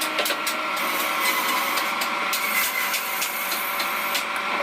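A woodworking power tool running steadily, with a scattering of sharp clicks.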